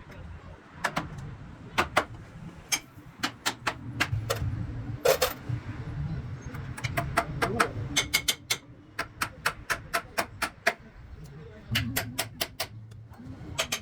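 Hand tools striking wood: a long run of sharp taps and knocks, irregular and at times about three a second, with one heavier knock about five seconds in, over a low steady background rumble.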